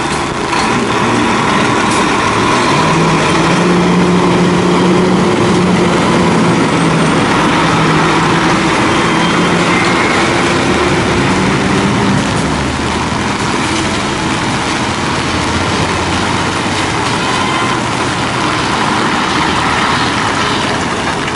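Heavy trucks driving past on a wet road, their engines running with a steady hum and their tyres hissing on the rain-soaked asphalt. The engine hum is strongest in the first half.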